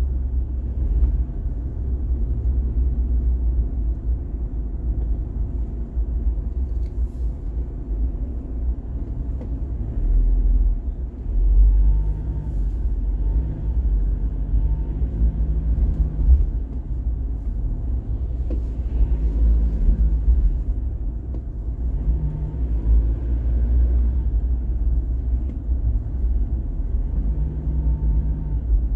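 Car driving in traffic on an elevated urban expressway: steady low road and engine rumble, with a deeper hum that swells and fades several times.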